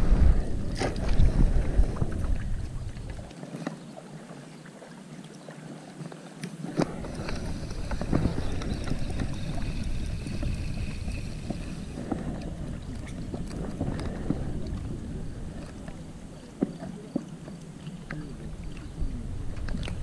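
Wind buffeting the microphone with a steady low rumble, plus scattered knocks and clicks from handling fishing tackle. The loudest knocks come in the first couple of seconds.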